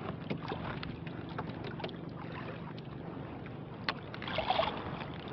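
Steady wind and water noise around a small wooden outrigger boat at sea, with scattered light clicks of fishing line and bait being handled and a short louder rustle about four seconds in.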